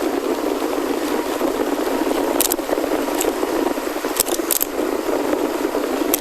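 Chromoly gravel bike rolling over a rough forest road: a steady rolling rumble from the tyres, with sharp rattling clicks from the bike a few times about halfway through.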